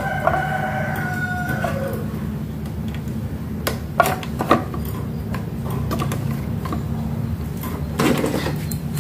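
A rooster crows once during the first two seconds, over a steady low hum. Later come a few sharp clicks and rattles, about four seconds in and again near the end, as plugs and wires are handled at a sewing machine control box.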